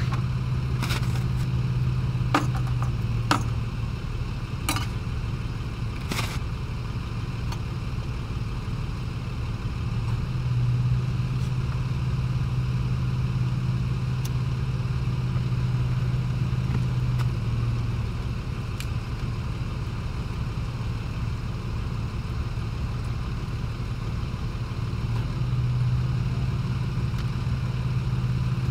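Vehicle engine idling steadily, a low hum that swells and eases slightly. A few sharp clicks and knocks of gear being handled come in the first six seconds.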